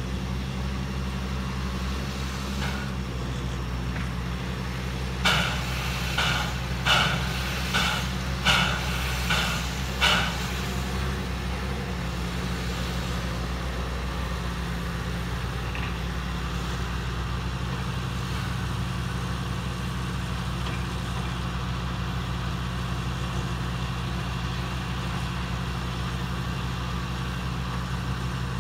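Front-end-loader farm tractor's diesel engine running steadily with a low hum. From about five seconds in come seven short, sharp, high-pitched sounds roughly a second apart.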